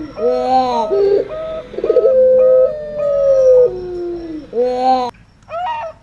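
Perkutut (zebra doves) and puter pelung doves cooing together in overlapping calls: long drawn notes sliding down in pitch over short repeated coos. The calls break off abruptly about five seconds in, followed by one short call near the end.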